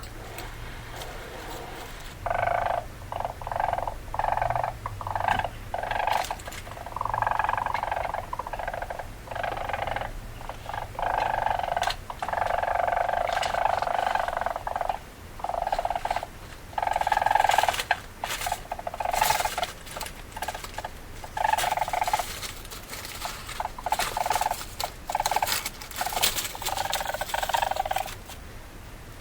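Weasel calls: a run of buzzy, pulsing bursts, each from under half a second to about two seconds long, starting about two seconds in and repeating with short gaps.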